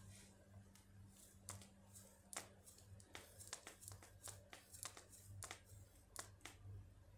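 Near silence: room tone with a low steady hum and a dozen or so faint, irregular clicks.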